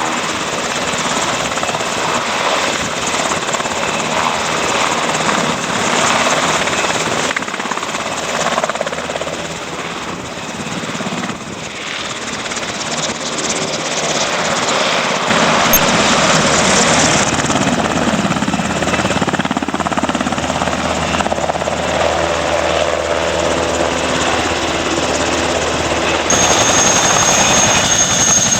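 Helicopter rotor and engine noise, loud and continuous, changing abruptly in character a few times. A steady high whine joins near the end.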